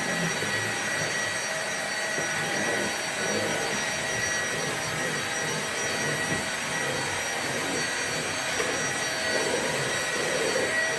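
Vacuum cleaner running steadily, a continuous even rush of air noise with a thin high whine held under it.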